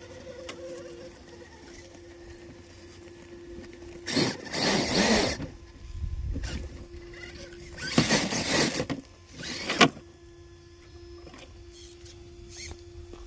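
Brushless motor of a Redcat Gen8 RC rock crawler (Hobbywing Xerun Axe system, 2800 kV) whining steadily at low crawling throttle. Louder rushing bursts break in about four seconds in and again from about eight to ten seconds.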